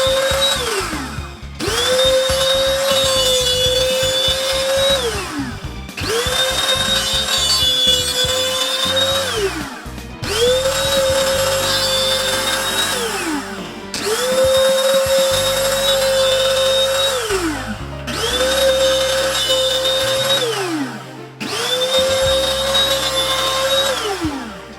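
Electric motor of the homemade table saw switched on and off again and again: about six times it spins up to a steady high whine, runs for about three seconds, then winds down with falling pitch.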